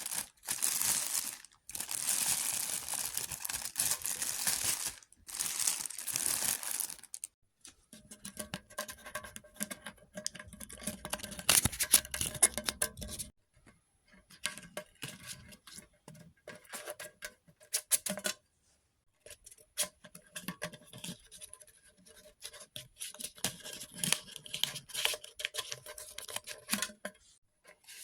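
Packaging being torn open, with several long rips in the first seven seconds, followed by irregular crinkling, rustling and clicking as the opened package and its contents are handled.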